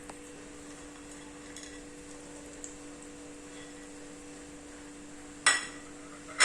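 A steady electrical hum, then two sharp metallic clinks with a short ring, one near the end and one right at the end: a metal spoon striking the rim of a metal cooking pot.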